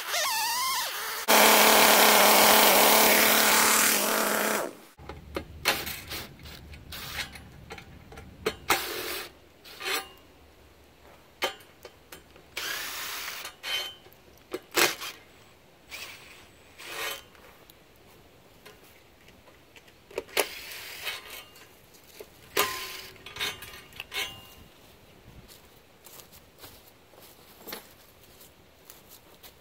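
A chainsaw runs hard for about three seconds and then stops abruptly. After that, a cordless drill driver spins in short bursts of about a second, among sharp metallic clanks and knocks as the aluminium guide rails of the chainsaw mill are fitted.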